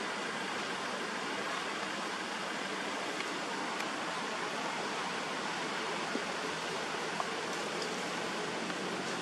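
A steady, even hiss of outdoor background noise, with a few faint ticks.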